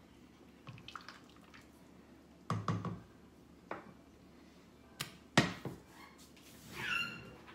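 Stainless steel soup pot and spoon being handled on the stovetop: scattered light clinks and knocks, a duller knock about two and a half seconds in, and two sharp clacks a little after five seconds in. A brief pitched sound follows near the end.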